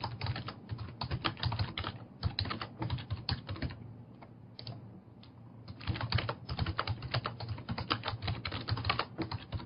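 Typing on a computer keyboard: quick runs of keystrokes that ease off for about two seconds in the middle, then start again.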